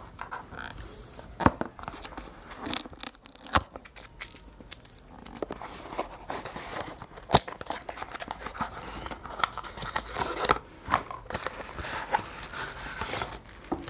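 Hands opening the packaging of a selfie stick: irregular tearing, crinkling and rustling, scattered with sharp clicks.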